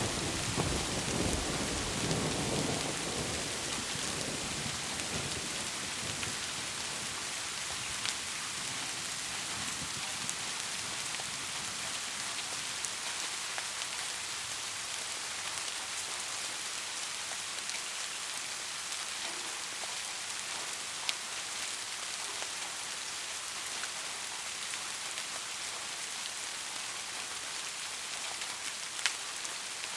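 Heavy rain falling steadily, with scattered louder drops ticking. In the first few seconds the tail of a thunder rumble fades away.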